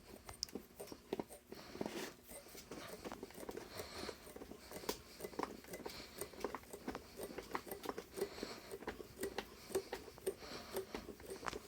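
Faint small clicks and ticks from a freshly de-rusted steel jig bore vise being handled, its screw turned and spinning freely.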